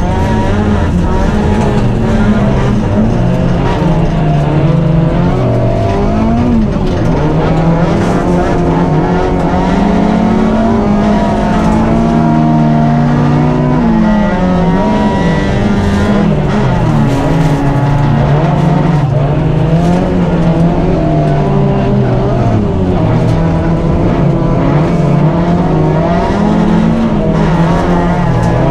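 Fiat rally car engine heard from inside the cabin, driven hard on a dirt stage, its revs climbing and dropping again and again with gear changes and lifts. A steady rush of tyre and gravel noise runs underneath.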